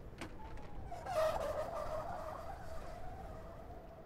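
Brakes squealing while slowing: a wavering high squeal that is loudest about a second in, then thins to one tone and fades. A short click comes just before it.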